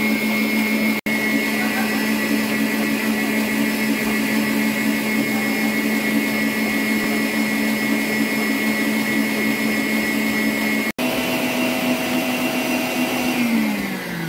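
Electric stand mixer running steadily with a whining motor as it whips a thick ice-cream mixture in a stainless steel bowl. It breaks off for an instant twice, and near the end the motor's pitch falls as it slows down.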